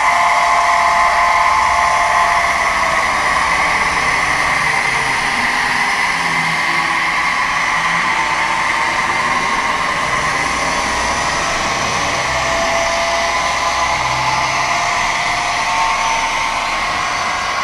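HO-scale model train running on its layout: a steady electric whirr with a few held tones that shift slightly in pitch now and then.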